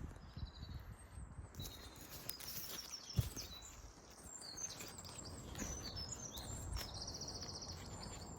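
Small birds chirping and singing, with a fast, even trill near the end, over a low background rumble; a single sharp knock about three seconds in.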